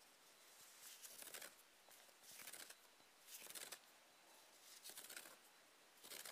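T-shirt yarn rustling as it is pulled loose and handled: about five faint, soft swishes, a second or so apart.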